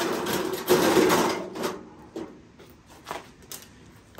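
Parts of a gutted microwave oven rattling and scraping as they are pulled out, a dense clatter for about two seconds, then a few separate clicks.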